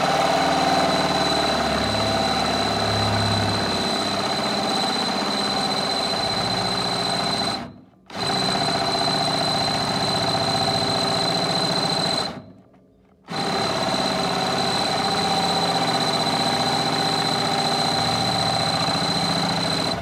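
Electric drill motor running at a steady speed while boring holes through metal, with a constant high whine. It runs in three long spells, stopping briefly about 8 seconds in and again about 12 seconds in.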